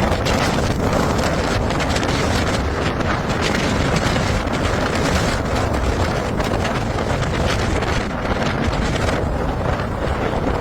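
Typhoon wind blowing hard across the microphone: a loud, steady rush of noise that flutters slightly in strength.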